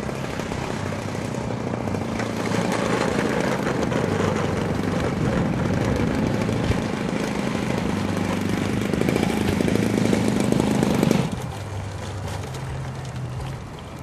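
Radio-control model airplane's engine and propeller running as it lands and taxis closer, growing louder, then dropping abruptly to a quieter level about eleven seconds in.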